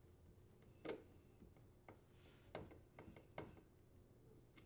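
Faint, scattered metallic clicks, about six, from a screwdriver working the strain relief screws on a dishwasher's galvanized steel terminal box as the power cord is clamped.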